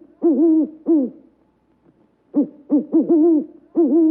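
Pigeon cooing: a run of low coos that swell into longer rolling ones, a pause of about a second, then another run of coos.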